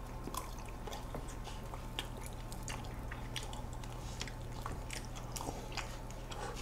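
Quiet mouth sounds of people eating soft ice cream cake: faint smacks and small clicks scattered through, over a steady low hum.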